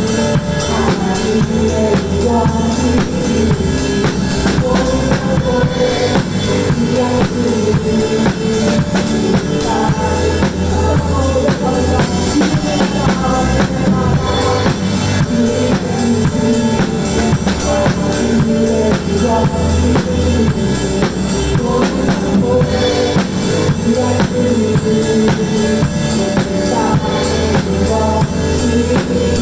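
Drum kit played along to a recorded worship song, kick and snare keeping a steady beat under the music.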